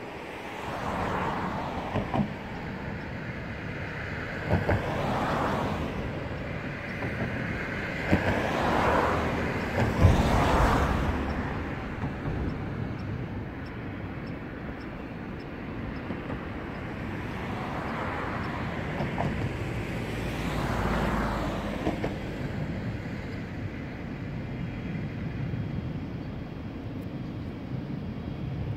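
Vehicles passing one after another, each a rush that rises and falls over a couple of seconds, with a few sharp clicks, over a steady urban traffic background.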